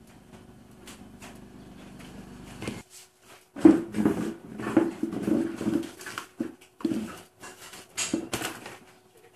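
Hands handling a plastic power socket box, wires and a meter: irregular clicks, knocks and rustling, mostly in the second half.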